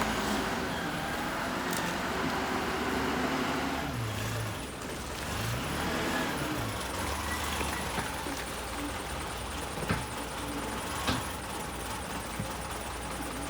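Wheel loader's diesel engine running, its pitch rising and falling a few seconds in, with a few short knocks later on.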